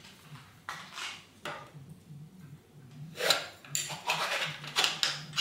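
A long metal rod working a twisted paper towel down inside a steel SR Suntour T890 suspension fork tube, making scraping and rubbing with light metallic clinks in several separate strokes, busiest from about three seconds in. The tube is being wiped clean of degreaser and loose rust scale.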